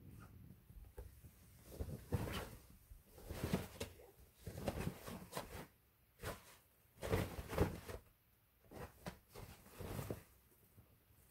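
Cats pawing and shifting against a collapsible fabric cat tunnel and a sisal scratching mat: irregular rustles and scuffs in several short clusters with quiet gaps between.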